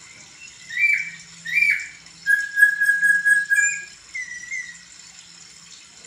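Caged laughingthrush (poksay) singing clear whistled phrases: two short down-slurred notes, then one long level whistle of about a second and a half, then a few softer short notes.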